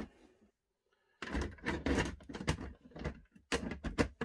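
Plastic enclosure lid being fitted and pressed shut onto a clear plastic tub: a run of plastic knocks and clatters starting about a second in, with a few sharper clicks near the end.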